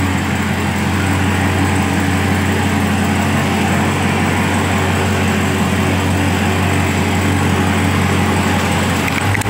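Supercharged 6.2-litre Hemi V8 idling steadily with a deep, even hum.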